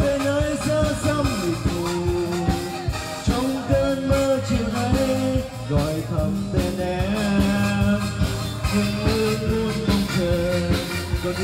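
Live band music with singing: electric bass and drum kit under a sung melody, playing continuously.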